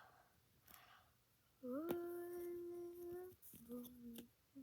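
A person humming: one long held note, then a shorter, lower note, with a light click about two seconds in.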